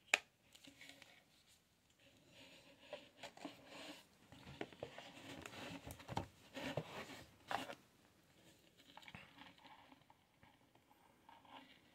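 Hands handling card packaging in a cardboard shipping box: a sharp tap right at the start, then irregular rustling, crinkling and light tapping that is busiest in the middle, as a boxed tarot deck is lifted out.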